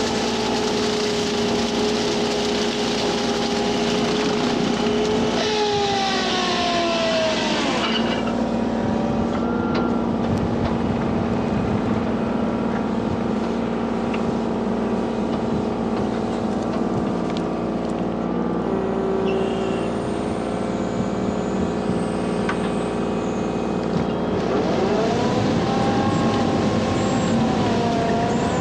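Kubota U35-4 mini excavator's diesel engine running steadily under the whine of the Express Steel brush cutter's blade. The whine drops in pitch about six seconds in, and near the end it wavers up and down with a rush of hiss as the cutter churns into the reeds and water.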